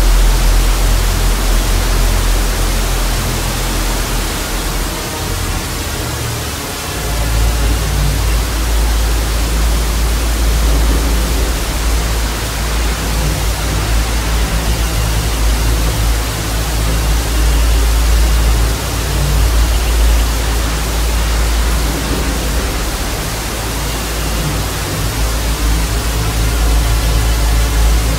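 Television static hiss with a deep low drone underneath; the drone drops away briefly about five seconds in.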